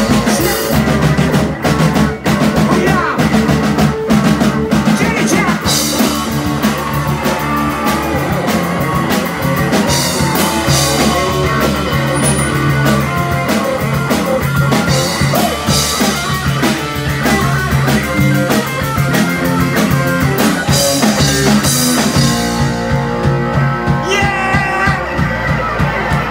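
Live rock band playing an instrumental break without vocals: electric guitar over a full drum kit. Near the end the drums and cymbals drop away, leaving a thinner passage of held notes.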